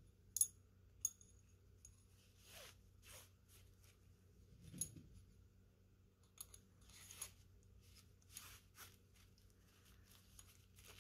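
Faint handling sounds: steel M10 cleaning rod sections click lightly against each other twice near the start, then slide into a canvas case with soft scraping rustles.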